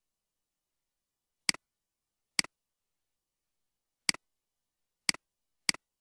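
Five computer mouse clicks, unevenly spaced, each a sharp click with a softer second click right after it, as the button is pressed and released.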